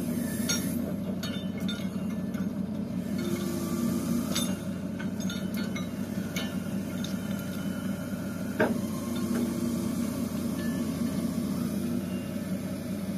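Truck-mounted hydraulic crane at work: a steady drone from the truck engine driving the hydraulics, with the chain sling and hooks clinking as the boom swings. One sharper metal clank about two-thirds of the way through.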